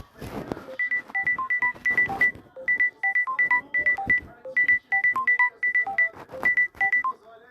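Samsung Galaxy A72 ringtone playing: a quick melody of short, high notes over a light percussive beat, the phrase repeating about every two seconds.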